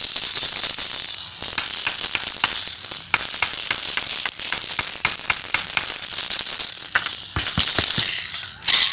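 A continuous dense rattle, a steady hiss full of quick clicks like many small hard pieces, fading briefly near the end.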